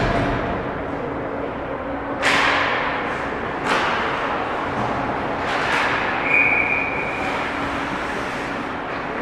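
Ice hockey rink during play: sharp cracks of pucks and sticks striking the boards and ice, each echoing through the arena, over steady rink noise. A short high tone sounds a little after the middle.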